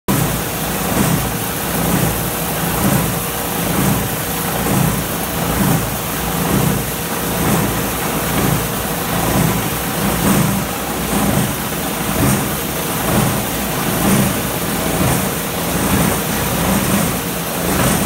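Cable granulator running while it chops coaxial cable, a steady machine drone that swells about once a second.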